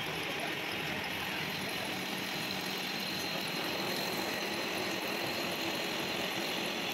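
Metal lathe running steadily, turning a steel shaft held between centres as the cutting tool works it.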